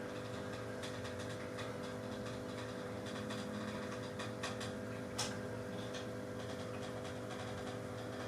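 Steady low electrical-type hum, with a few faint light clicks and taps, the clearest about five seconds in.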